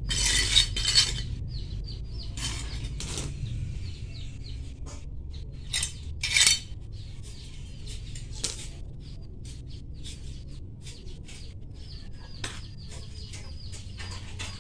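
Small hand trowel digging and scraping through potting soil in a plastic pot: irregular gritty scrapes and clinks, loudest in the first second and again about six seconds in.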